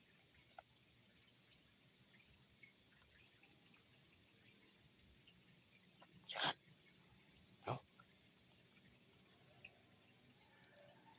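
Steady high-pitched chirring of insects, with two short, sharp sounds a little over a second apart midway through.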